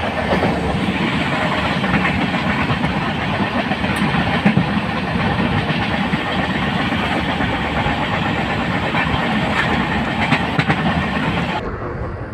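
Passenger train running along the track, heard from inside the carriage: a steady rumbling rush with a few sharp clicks from the wheels. The sound turns duller and quieter shortly before the end.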